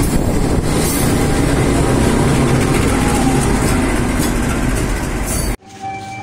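Diesel locomotive running close by, with a loud, steady engine rumble and train noise. About five and a half seconds in it cuts off suddenly and gives way to music.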